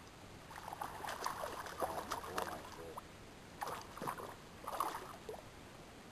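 A hooked smallmouth bass splashing and thrashing at the surface beside a canoe, in several irregular bursts of sloshing water.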